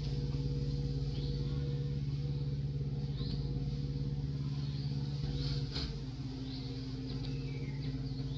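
A steady low engine-like hum made of several held tones, which shifts a little about two-thirds of the way through, with short high chirps over it now and then.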